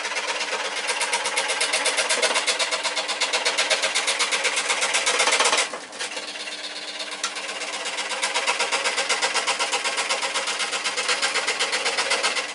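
Switzer 16-inch 125 W scroll saw running at slow speed, its reciprocating blade cutting laminate with a rapid, even chatter over a steady motor hum. The cutting sound drops away briefly about halfway through, then carries on.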